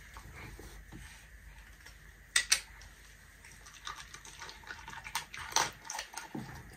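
Dog crunching dry food from a hand: scattered sharp clicks and crunches, with two loud clicks in quick succession about two and a half seconds in.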